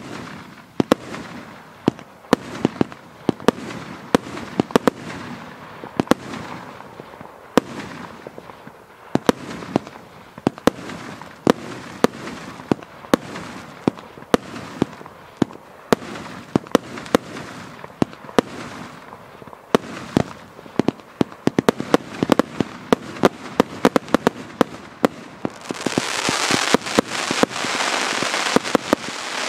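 Pyro Crazy firework cake firing a rapid barrage: one sharp launch bang and burst after another, over a hiss. A few seconds before the end a louder steady hiss joins, as a fan of white fountain-like comets fires.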